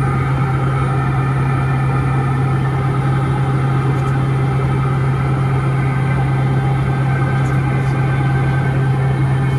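Piper Meridian's turboprop cabin noise in flight: the Pratt & Whitney PT6A turbine and propeller give a steady loud drone with a strong constant low hum under a rushing noise, unchanging throughout.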